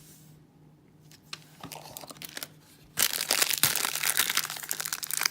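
A toy blind-bag wrapper being crinkled and torn open by hand. It is faint at first, and the crinkling turns loud and continuous about three seconds in.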